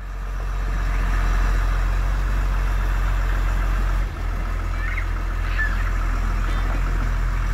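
Engine of a 4x4 box-bodied camper truck running steadily at low revs as the truck crawls through a shallow river ford, with a brief dip about halfway.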